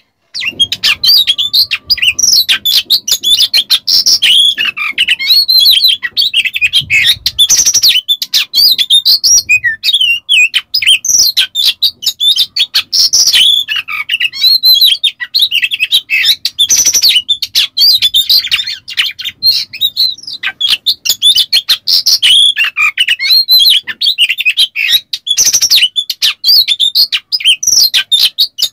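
Oriental magpie-robin singing a fast, unbroken stream of whistled phrases mixed with harsh, rasping notes, in the overexcited state bird keepers call 'konslet'.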